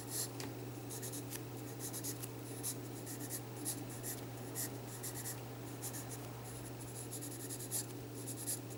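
Graphite pencil scratching on sketchbook paper in many quick, short, irregular strokes as lines of a sketch are drawn and gone over.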